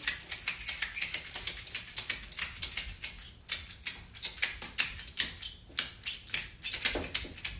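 Ratchet buckle on a door anchor strap clicking rapidly as its handle is worked open and closed, taking up the strap and tightening it. The clicks come thick and fast at first, then space out and get softer towards the end as the strap comes tight.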